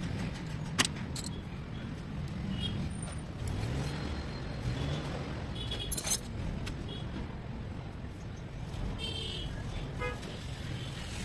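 Low rumble of motor traffic, with a couple of sharp metallic clicks and faint high chirps.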